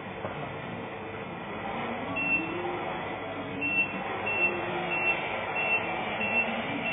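RC semi truck's onboard sound unit: a low simulated engine note rising and falling in pitch, then reversing beeps starting about halfway in, a little under two beeps a second.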